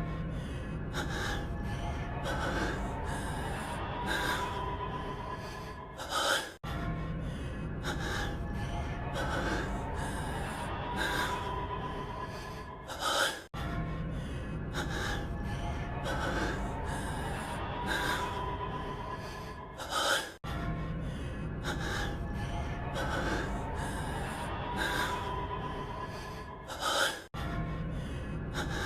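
A man's heavy, gasping breathing in a short clip looped over and over, about every seven seconds, each repeat ending in a louder gasp and a brief cut. Faint background music runs under it.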